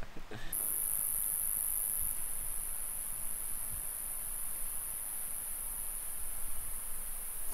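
Night insect chorus in woodland, a steady high-pitched trill that comes in about half a second in. It is strongest for the first couple of seconds, then holds a little lower.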